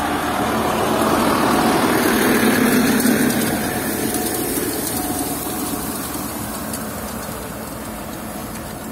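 YUMZ-6 tractor's diesel engine running under load as it pulls a hay rake past, growing louder to a peak about three seconds in and then slowly fading as it moves away.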